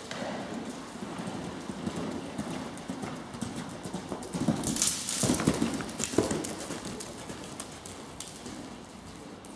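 A cantering horse's hooves thudding on the arena's sand footing, loudest a little past halfway as the horse passes close by, then fading as it moves away.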